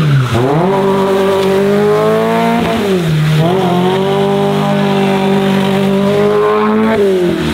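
Mazda Miata engine revving high and held steady while the car drifts, the revs dipping briefly about a third of a second in and again around three seconds, then falling away near the end.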